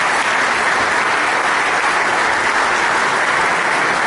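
Audience applauding steadily in an auditorium at the close of a speech.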